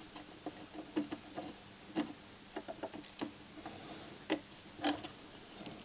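Faint, irregular little clicks and taps of a soldering iron tip and a small hand tool touching a circuit board and its parts during soldering.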